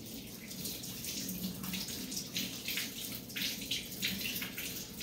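Water running from a kitchen tap, splashing unevenly into the sink.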